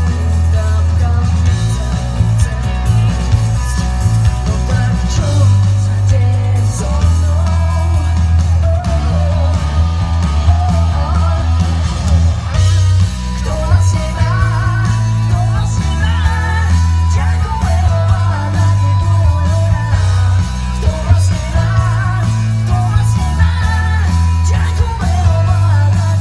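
Live band performing: a woman singing into a microphone over electric guitar and a heavy, pulsing bass line.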